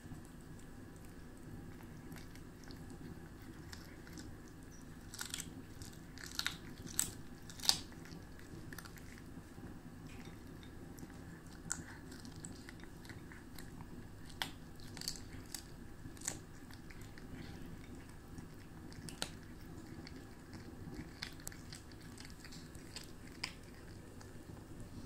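Cat chewing a fish head, with scattered sharp crunches coming in clusters over a steady low background hum.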